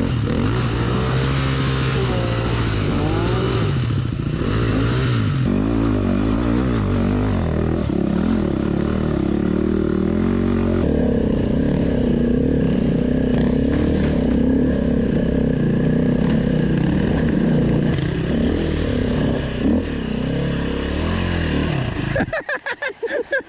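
Dirt bike engine revving up and down under load on a steep uphill climb, its pitch rising and falling with the throttle. The sound drops away suddenly shortly before the end.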